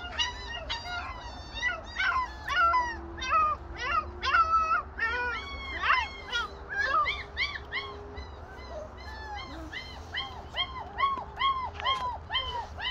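German Shepherd puppies whining and yelping: a rapid string of short, high-pitched cries, several a second, each rising then falling in pitch.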